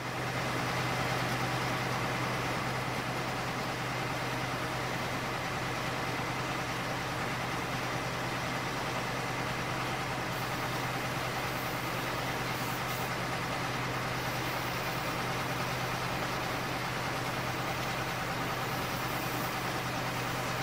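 A vehicle engine running at a steady idle, a low even drone with a faint steady high whine over it.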